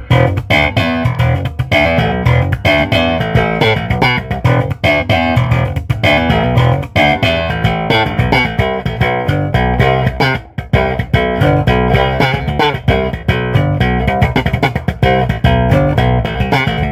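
Custom electric bass guitar played through its precision (P-bass) split-coil pickup alone, the balance pot turned fully to that pickup, heard through a bass amp cabinet: a continuous run of quick, sharply attacked plucked notes.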